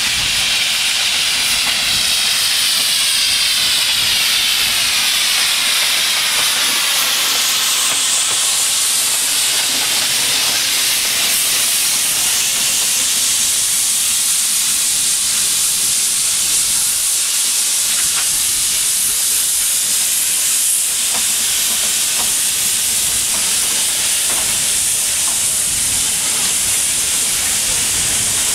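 Two narrow-gauge steam locomotives hauling a passenger train past, with a loud, steady hiss of steam. The hiss changes in character over the first several seconds as the engines go by, and faint clicks of the carriage wheels come through later as the carriages pass.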